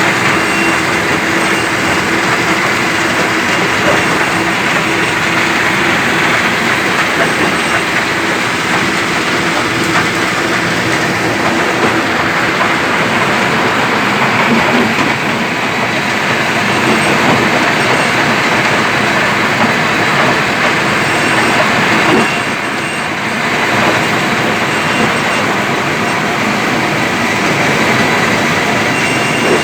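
Stone crusher running, a loud steady rattling clatter that is briefly quieter about three quarters of the way through.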